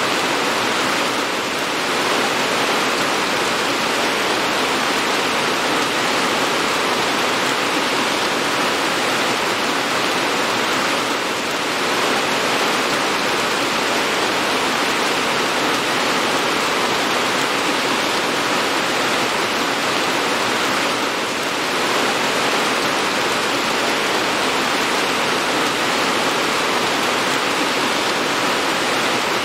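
Steady, heavy rain making an even hiss, dipping slightly about every ten seconds.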